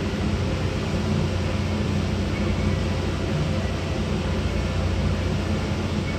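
Passenger ferry's engines running in a steady low drone as the ship gets under way, with an even hiss of wind and water over it.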